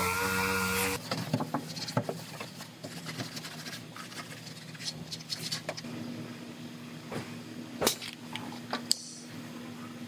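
Small pneumatic sander running with a steady high whine, cut off suddenly about a second in. Then scattered clicks and knocks from a seam-sealer gun being handled and triggered under the car, over a faint steady hum.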